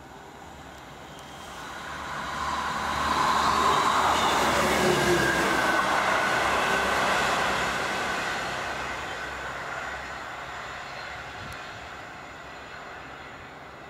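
Class 158 diesel multiple unit passing close by. Its engine and wheels on the rails build up over a couple of seconds, are loudest for several seconds as it goes past, then fade as it draws away.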